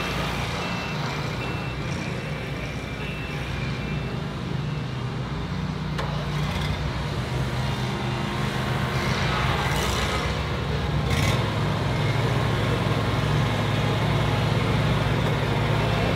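Engines of several commercial mowers running steadily, with a closer engine growing louder and steadier about eleven seconds in. A faint repeating warning beep sounds during the first few seconds.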